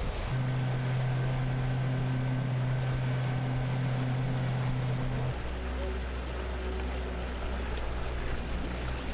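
Motorboat engine running steadily at speed over rushing water. The engine hum drops to a lower pitch about five seconds in.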